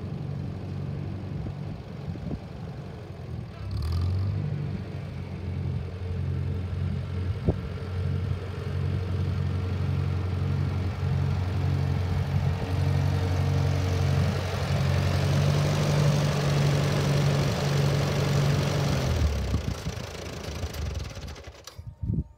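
1945 Farmall B tractor's four-cylinder engine running steadily at a low, even speed as the tractor drives on pavement. It grows louder as the tractor comes close, then dies away near the end.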